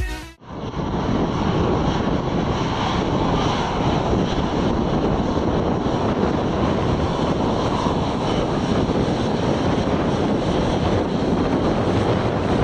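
Jet engines of an Airbus A350 (Rolls-Royce Trent XWB) running steadily at taxi power, with wind buffeting the microphone.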